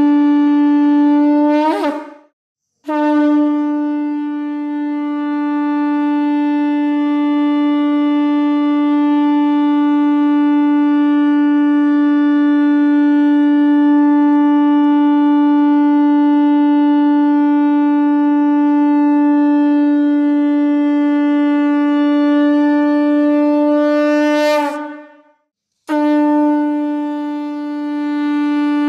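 Conch shell (shankha) blown in long blasts on one steady note, each blast ending with a short upward bend in pitch. A brief breath gap falls about two seconds in, then a blast of over twenty seconds, then another gap near the end before a new blast begins.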